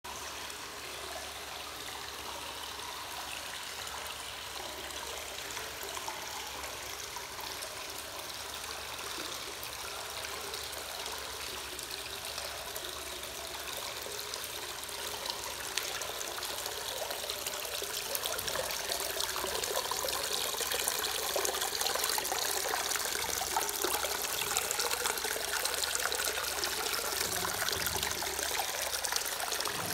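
Hot-spring water pouring from a rock spout into a tiled indoor bath, a steady splashing trickle that grows louder and closer from about halfway through.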